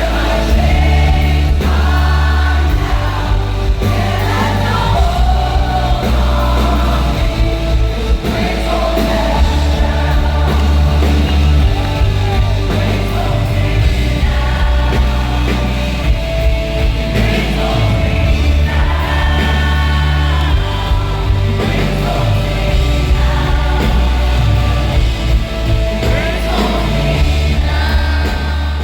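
Live worship music: a band with heavy, sustained bass and sung vocals, with voices singing together.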